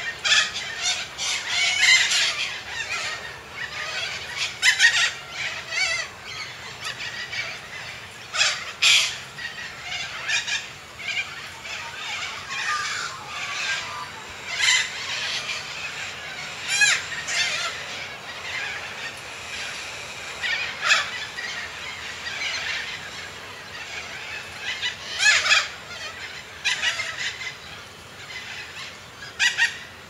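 Cockatoo calls: harsh screeching squawks repeated irregularly, some short and some drawn out, with several louder calls standing out.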